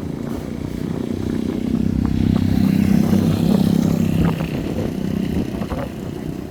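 Motor vehicle engine running, its hum swelling to a peak in the middle and then easing off, with a few scattered clattering knocks.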